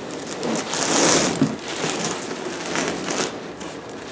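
Plastic bag and loose foam packing peanuts rustling and crinkling as a heavy bag of dry rock is wrestled about in its cardboard box, loudest about a second in with a second surge near the three-second mark.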